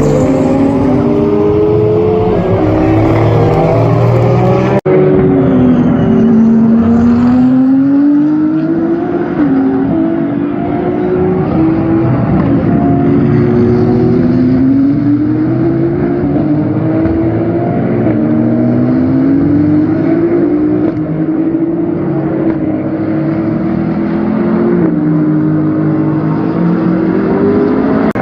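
Race car engines at high revs on track, the pitch climbing through each gear and dropping at every shift and lift-off, with cars passing one after another. About five seconds in the sound cuts abruptly to a different clip of the same kind.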